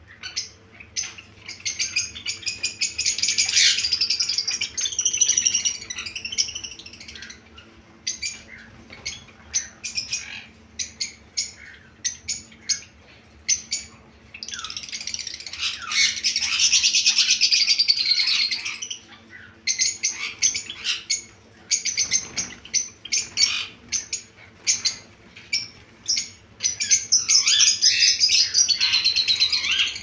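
Many caged Java sparrows chirping together: stretches of dense, overlapping chatter alternate with runs of separate sharp chirps. A faint steady hum sits underneath.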